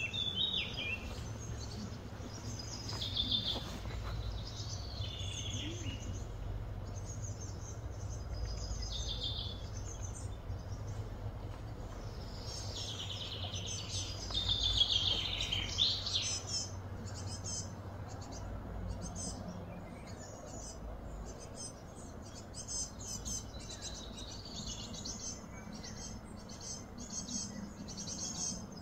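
Birds calling and chirping in short repeated phrases, loudest a little past the middle, over a steady low hum.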